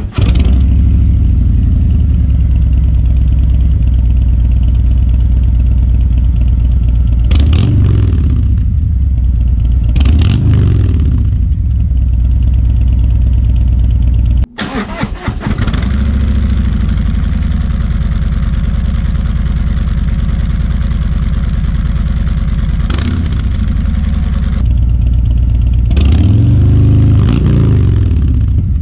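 Harley-Davidson Road Glide Special's V-twin idling through Vance & Hines 4.5-inch High Output slip-on mufflers, with short throttle blips about eight and ten seconds in, another at about 23 seconds, and a longer rev near the end. The sound breaks off for a moment about halfway, then the idle resumes.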